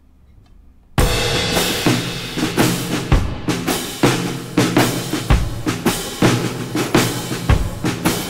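Background music with a steady drum beat, starting suddenly about a second in after near silence.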